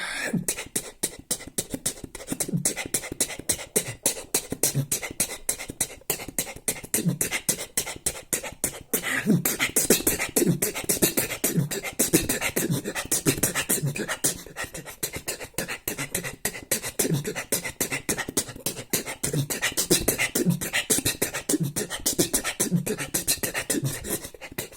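Beatboxing: a fast, steady vocal-percussion routine built from cough sounds, with sharp clicks and low kick-like thumps repeating without a break.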